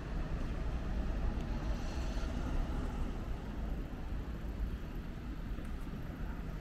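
Steady outdoor hum of road traffic and idling vehicles, with a constant low rumble.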